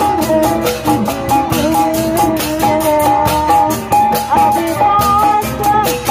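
Live Sundanese benjang ensemble music, a melody line held and bent over steady drumming, part of a medley of popular songs.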